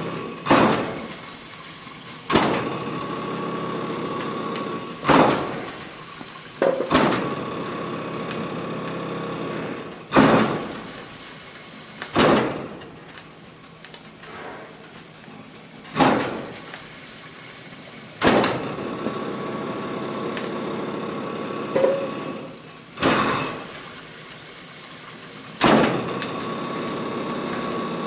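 Steam locomotive's steam-driven air pump working slowly: a sharp stroke about every two to three seconds, each dying away over about a second, over a steady hum with a steady high tone.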